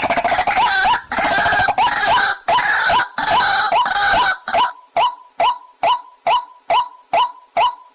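Waterhen calls. A dense, harsh run of overlapping calls lasts about four and a half seconds, then gives way to single clipped notes repeated evenly, about two and a half a second.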